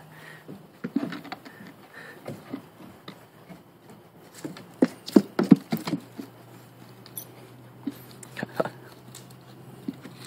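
Husky puppy's paws and claws tapping on a concrete porch as it paces at the edge of a step: scattered soft taps, with a louder cluster about five seconds in.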